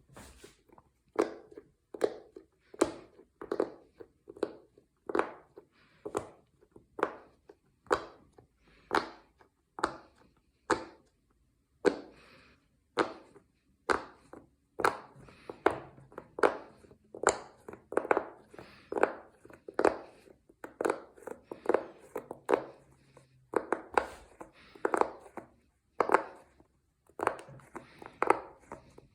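Silicone pop-it fidget toy bubbles being pressed in one after another, each giving a short muted pop, in a steady rhythm of about two a second.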